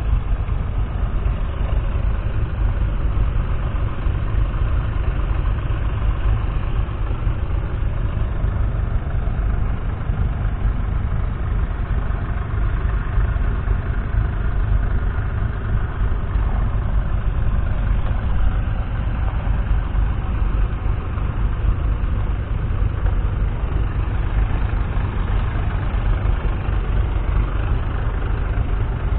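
1969 Ford 4000's 3.3-litre three-cylinder diesel engine idling steadily.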